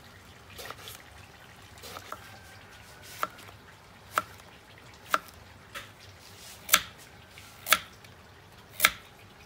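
Kitchen knife slicing eggplant, zucchini and carrot into rounds on a plastic cutting board. Each cut ends in a sharp tap of the blade on the board, about once a second, louder near the end.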